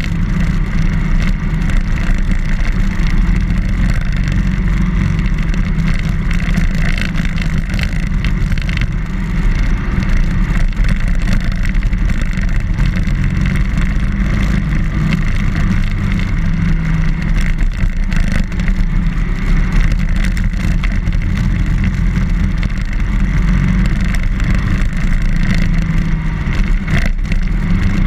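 BMW R1200GS motorcycle under way, its boxer-twin engine running steadily at an even level.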